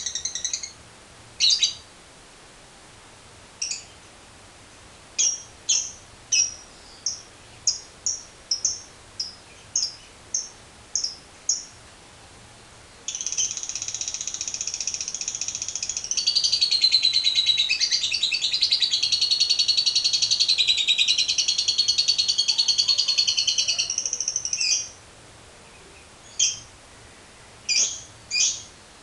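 Lovebird calling: sharp high chirps, then a regular series of short chirps at about one and a half a second. About 13 s in it breaks into one long continuous chattering trill of about 12 s, the 'ngekek panjang' (long chatter) prized in a lovebird in full song. Short chirps follow near the end.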